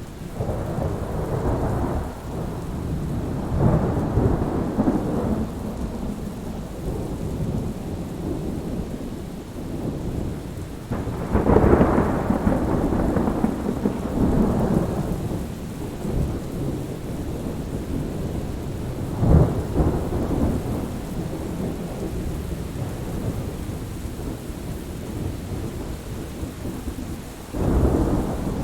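Thunder rolling repeatedly over steady rain: several long rumbles swell and fade, the loudest about twelve seconds in, with a sharper clap just before twenty seconds and another rumble near the end.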